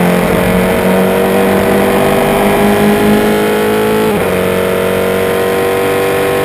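Single-seater racing car engine heard from an onboard camera, accelerating hard with its pitch climbing steadily. About four seconds in, the pitch drops abruptly on an upshift and then climbs again.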